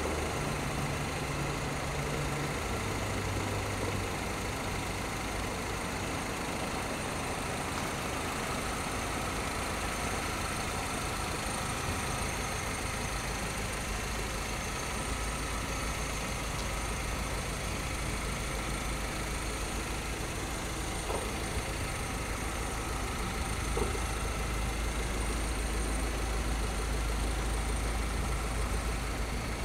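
Mini Cooper S's 1.6-litre turbocharged four-cylinder engine running steadily with a constant low rumble, with two light ticks in the second half.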